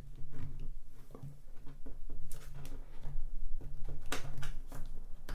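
Hard plastic cable connectors on an EcoFlow PowerStream microinverter being handled and worked on their sockets: a string of small clicks and knocks, with a few sharper clicks about two and four seconds in.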